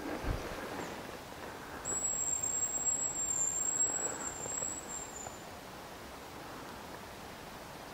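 A hazel-grouse whistle: one long, thin, very high note held about three seconds with a slight waver, dipping a little at the end. A dull knock sounds just at the start.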